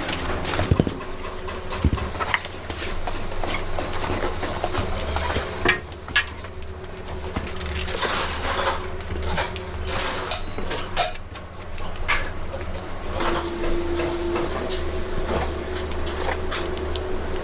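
Scattered clinks and knocks of food-preparation work over a steady low hum.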